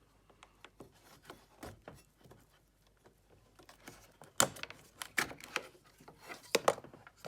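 Hard plastic clicks and knocks from a VW headlamp's wiring connector being unplugged and the headlamp assembly being lifted free: light clicks at first, then a cluster of sharper knocks about four and a half seconds in.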